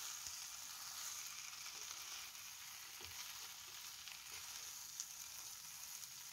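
Faint sizzling of rice, potato and fried fish heads in a nonstick pan, the cooking water all boiled off. A flat spatula gently turns the mix, with a few soft scrapes and ticks.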